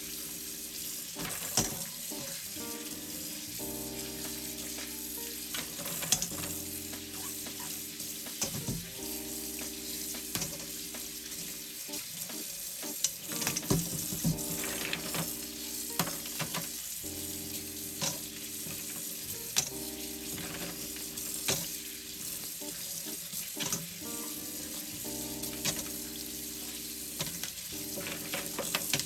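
Food sizzling in oil in a frying pan, with scattered sharp clicks and knocks of a utensil against the pan, over soft background music.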